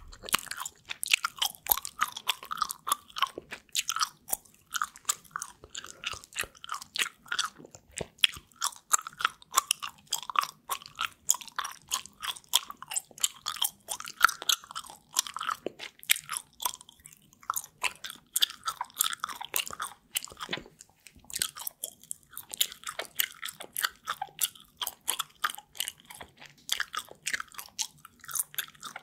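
Close-miked gum chewing: a continuous run of wet mouth smacks and clicks, several a second, at an uneven rhythm.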